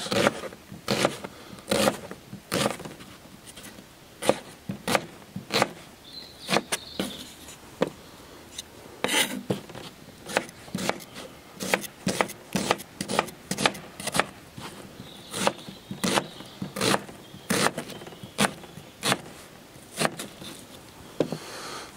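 Kitchen knife dicing an onion on a plastic chopping board: a run of sharp, irregular knife taps against the board, roughly one to two a second.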